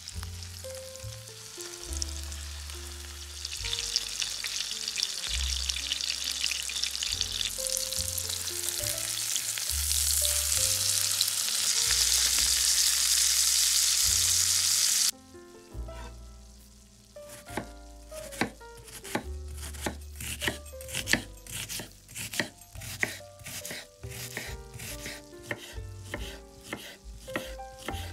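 Chicken breasts sizzling in butter and oil in a non-stick frying pan, the sizzle growing louder, then cutting off suddenly about halfway through. After that, a chef's knife chops steadily on a wooden cutting board, mincing onion and garlic in sharp, regular taps, over quiet background music.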